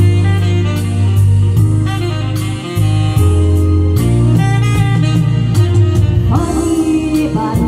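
Music: a song with saxophone and a singing voice over a strong bass line and a steady drum beat.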